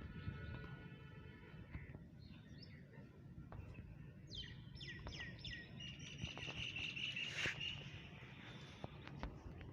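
Small birds chirping over a steady low background rumble. A run of quick downward-sweeping chirps comes a little after four seconds in, followed by a longer high trill.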